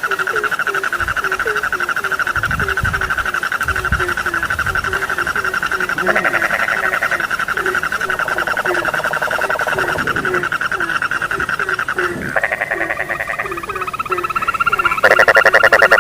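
A chorus of frogs calling at once: a continuous rapid trill over a low croak repeated about twice a second. A louder pulsed call joins near the end.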